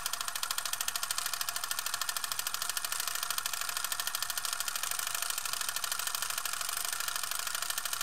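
A camera mechanism running continuously, giving a rapid, even clicking of about ten to twelve clicks a second with a light mechanical whir.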